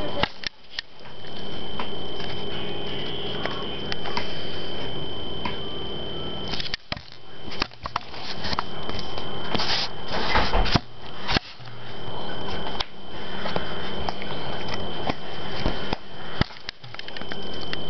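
Knocks, clicks and rustling of a camera being handled and moved, the background swelling back after each knock, over a steady high-pitched whine and low hum.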